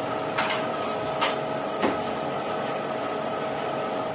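Steady electrical whine of commercial kitchen machinery, with a few sharp clicks and knocks of utensils or containers in the first two seconds.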